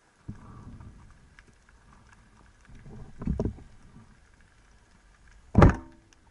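Band-powered Salvimar Predathor 85 speargun firing underwater: one sharp, loud thunk near the end. Before it, softer low underwater rumbles about half a second in and again about three seconds in.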